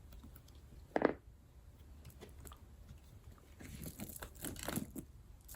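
Faint handling sounds of a caviar-leather vanity case being turned over in the hands: a soft knock about a second in, then a run of light rustles and scrapes.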